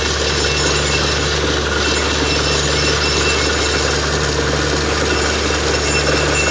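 Borewell drilling rig's engine running steadily under a dense rush of water and air blowing out of the newly struck bore, with a low tone in the hum coming and going about every second and a half.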